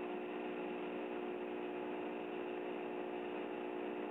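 Hwacheon M3-5AX five-axis CNC milling center finish-cutting a 6061 aluminium impeller with a 20 mm end mill, spindle at 6,200 rpm: a steady machining hum with several held tones that does not change.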